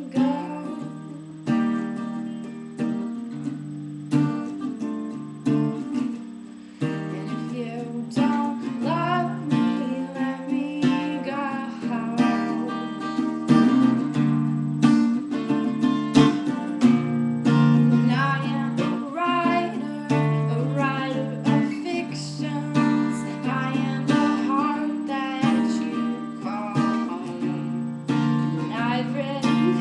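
Acoustic guitar strummed in a steady rhythm, with a woman singing over it.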